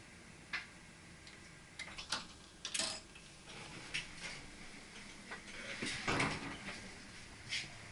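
A string of irregular sharp clicks and light knocks, handling noise from things being worked or moved by hand, with a short rattling cluster about six seconds in.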